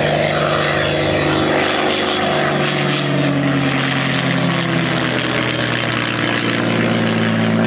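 Propeller-driven Messerschmitt Bf 109 E fighter flying past, its piston engine droning steadily. The pitch sinks a little as it goes by.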